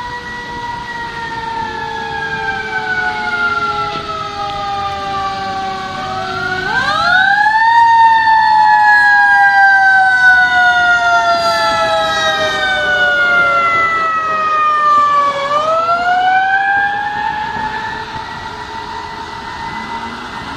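Fire truck and ambulance sirens wailing together as the vehicles drive past. Each wail falls slowly in pitch and then swoops quickly back up, about every nine seconds. The sound is loudest about a third of the way through, as the fire truck goes by, and then fades as the vehicles move away.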